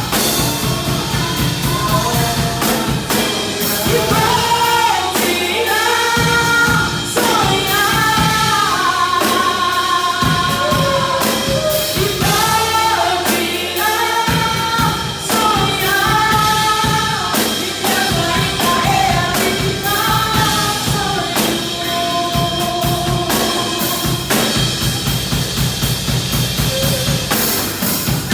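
Church worship band performing a gospel praise song: voices sing a melody over drums and bass with a steady beat.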